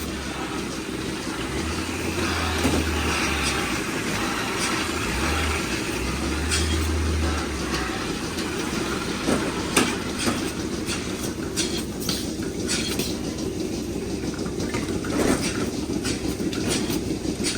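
Steady mechanical running noise with a low hum that comes and goes, and scattered short knocks and clanks in the second half.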